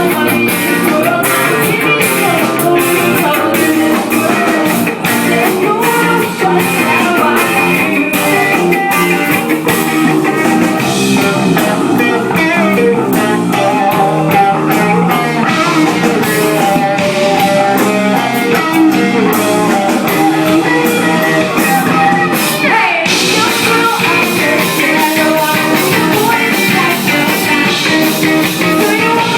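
Live band playing blues-rock, led by guitar over a steady beat, with a brief drop a little after the halfway point before the band carries on.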